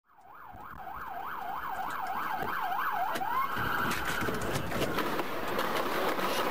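An emergency-vehicle siren on a fast yelp, sweeping up and down about three times a second. It fades in and stops after about three seconds, leaving steady street noise.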